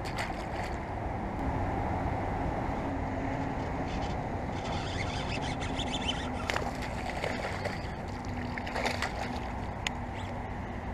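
Steady low outdoor rumble with a faint hum running through it, and a few short clicks and rustles about six and nine seconds in.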